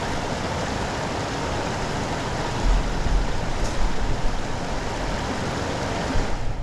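Steady rush of heavy rain and floodwater running off the street, with low rumbling bumps from a little under halfway in.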